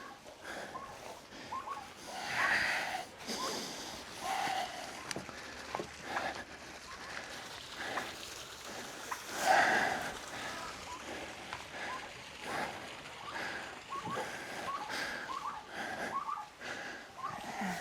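Barnyard livestock and poultry calling: several louder calls a few seconds apart, over many short chirping calls.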